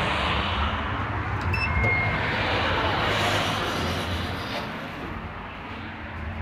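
Steady road traffic passing close by. About a second and a half in there are short high electronic beeps from a Schindler 3300 elevator. The traffic noise drops and dulls after about five seconds, from inside the closed-in elevator cab.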